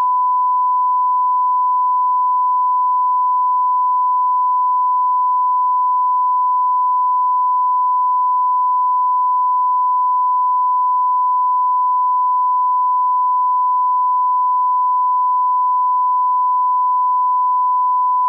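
Broadcast line-up test tone at 1 kHz, the reference tone that runs with colour bars: a single steady pure tone at an even level, unbroken throughout.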